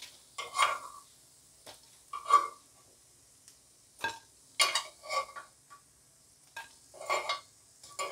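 Metal spoon clinking and scraping against a non-stick appe pan and a plate as cooked appe are scooped out and set down, in short separate strikes a second or so apart, over a faint steady hiss.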